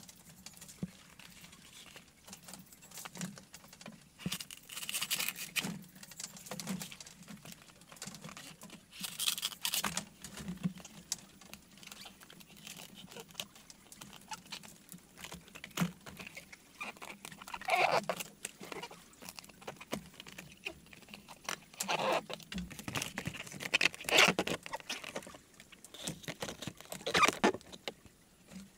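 Rustling, scraping and light knocking from hands handling split banana-trunk slabs and a bamboo frame. Irregular small taps run throughout, with a louder rustle every few seconds.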